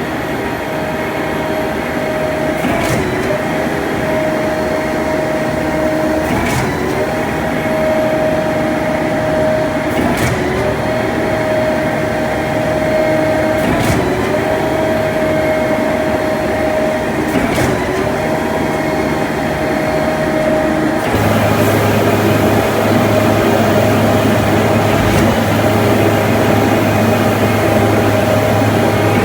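Concrete pump running steadily, with a sharp clunk about every three and a half to four seconds as it strokes. A deeper steady hum joins in about two-thirds of the way through.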